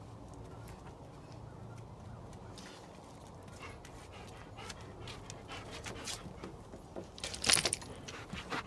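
Quiet sounds from a dog over a steady low background hum, with a brief louder noise about seven and a half seconds in.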